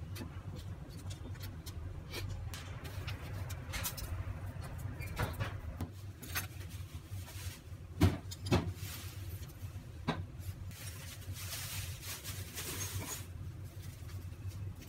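Kitchen handling sounds: scattered light clicks and knocks, including two sharper clinks about eight seconds in as a glass spice jar is tipped against a metal spoon. Around twelve seconds in comes a soft rustling hiss as spice is shaken out, all over a steady low hum.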